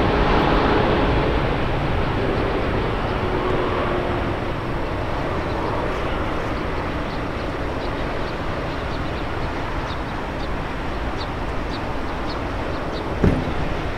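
Boeing 777-300 jet engines, a broad roar slowly fading away after the airliner has passed overhead on its landing approach, with a whining tone that dies out in the first few seconds. Faint high chirps come in from about five seconds in, and there is a single short knock near the end.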